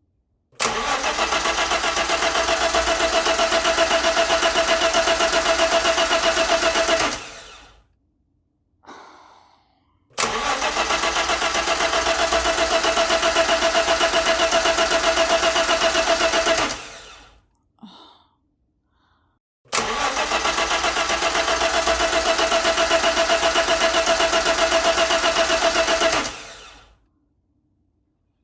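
A car engine being cranked by its starter in three long attempts of about six and a half seconds each, with a fast, even pulsing rhythm; it cranks but does not start.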